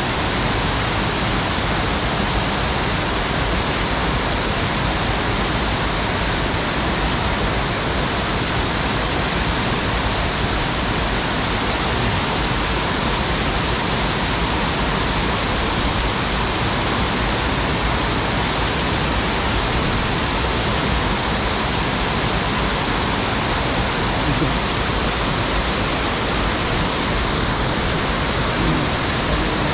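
Mountain stream rushing over shallow riffles: a loud, steady wash of water noise.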